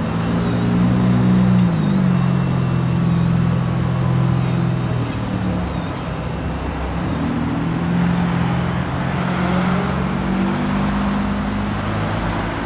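Freight train's covered hopper cars rolling past and pulling away, with steady rumble from the cars over the rails. Under it runs a steady engine drone whose pitch shifts a couple of times.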